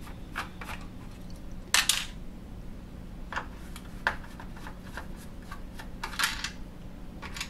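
Scattered small clicks and short scratchy rattles of hand work on a plastic dryer control panel, with its fixing screws being taken out with a screwdriver. The longest scrapes come about two seconds in and again near six seconds.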